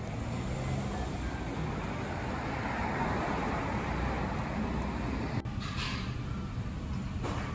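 Steady road traffic noise, swelling about three seconds in as a vehicle passes, then cutting off abruptly to a quieter indoor room ambience with a couple of short noisy bursts.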